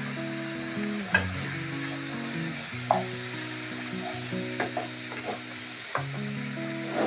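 Mutton pieces sizzling in a nonstick frying pan while a wooden spatula stirs them, with several sharp knocks and scrapes of the spatula against the pan.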